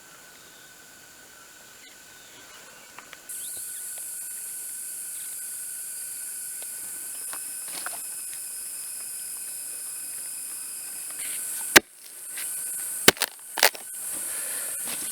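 Steady high-pitched forest insect drone that sets in a few seconds in, with a few sharp knocks near the end, the loudest about three quarters of the way through.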